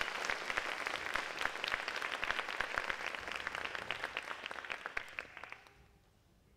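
Audience applauding as the music ends, fading out near the end.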